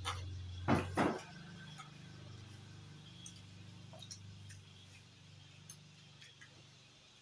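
Tableware clinking and tapping as people eat from plates and bowls, with two sharper knocks about a second in and lighter ticks after, over a low hum that fades out midway.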